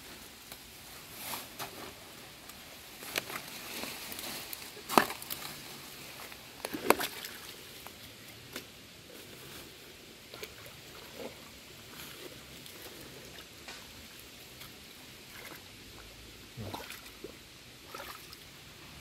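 Shallow pond water sloshing and splashing now and then, with two sharp splashes or knocks about five and seven seconds in, while the pond's outlet is being worked open to drain it.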